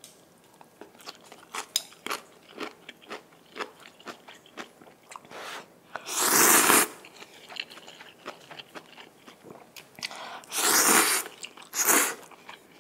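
Close-miked eating of instant noodles: wet chewing with many small mouth clicks, and loud noodle slurps about six seconds in and twice more near the end.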